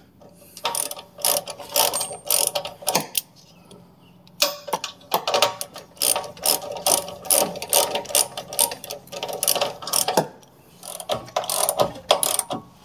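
Hand socket ratchet clicking in quick runs of back-and-forth strokes as a rock slider mounting bolt is run in and snugged down, with two short pauses.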